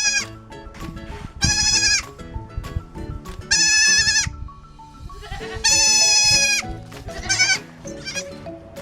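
A bleating farm animal giving a string of long, wavering, quavering bleats, roughly one every two seconds, over background music.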